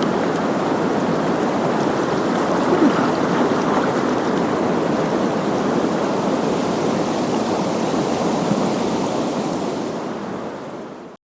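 Small river rushing over a shallow riffle: steady running water that fades down near the end and then cuts off.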